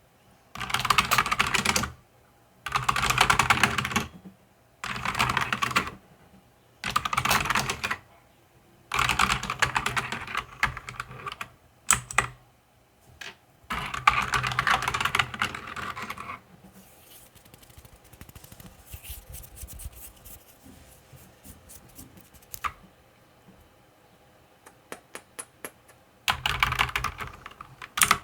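Mechanical keyboard being typed on in fast bursts of a second or two, with short pauses between. About halfway through, the typing gives way to faint, scattered clicks for several seconds, and fast typing resumes near the end.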